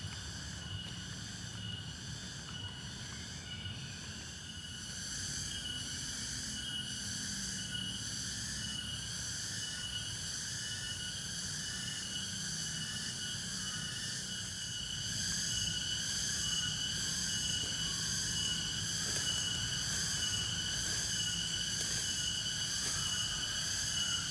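Night insect chorus of crickets and other insects, several layered trills pulsing together with one steady high tone. It grows louder about five seconds in and again about fifteen seconds in, over a faint low hum.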